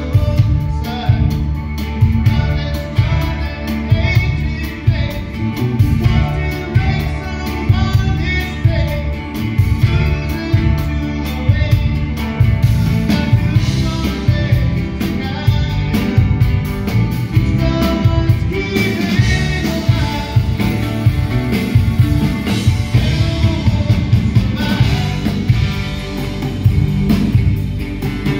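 A live rock band playing with a steady beat: strummed acoustic guitars, electric bass, drum kit and keyboard, under a male lead vocal.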